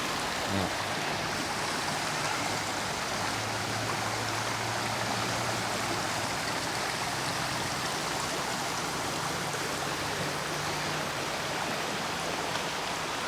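Water rushing over the low tiers of a cascading waterfall stream, a steady even rush, with a faint low hum underneath at times.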